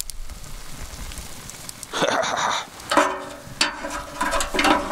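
Wood fire crackling under a metal smoker box, with knocks and scrapes from about two seconds in as hot-smoked sea trout is handled on the smoker's wire rack.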